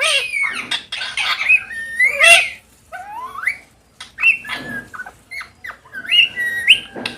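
Several parrots squawking and calling in quick, overlapping bursts of harsh squawks and rising and falling whistles.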